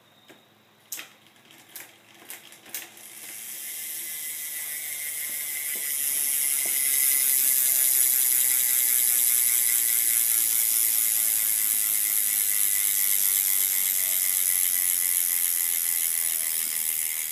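BMX rear cassette hub's ratchet pawls clicking fast as the wheel spins freely: a dense buzzing ratchet that swells over a few seconds, then holds steady while slowly dropping in rate. A few knocks in the first seconds as the bike is handled.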